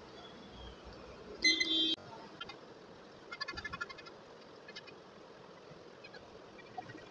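Short electronic beeps from a small digital timer: one loud beep about one and a half seconds in, then a quick run of rapid beeps a couple of seconds later and a brief one after that, over a low steady background.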